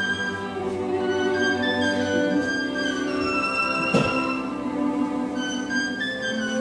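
Orchestral music, a violin carrying the melody over held string notes, with one short sharp knock about four seconds in.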